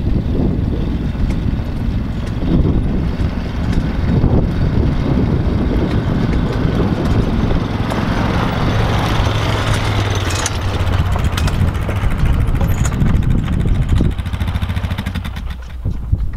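Four-wheeler ATV engine running as it drives up a gravel driveway, loudest as it passes close about halfway through, with tyres crunching on the gravel.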